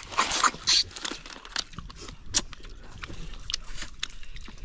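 People sucking and slurping cooked freshwater snails (ghonghi) out of their shells in gravy: a string of short wet slurps and clicks, the loudest in the first second.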